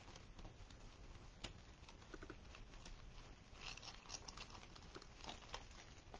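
Faint rustling and light scattered clicks of hands handling a deco mesh and ribbon wreath, with short bursts of crinkly rustle near the middle and toward the end.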